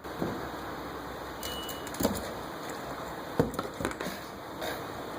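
A hammer striking a screwdriver or pry bar to knock the fuel pump lock ring loose on a Dodge Caravan fuel tank: a few sharp, irregular knocks about a second apart.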